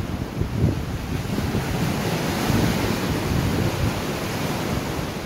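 Small waves washing over shoreline rocks, with wind buffeting the microphone in uneven gusts.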